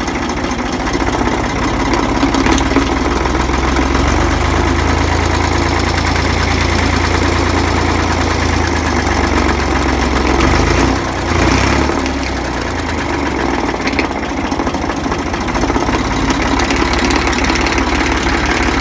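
Ford 2000 tractor engine running steadily at idle.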